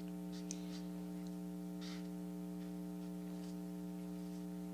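A few faint, short scratchy strokes of a marker colouring on paper, over a steady low hum.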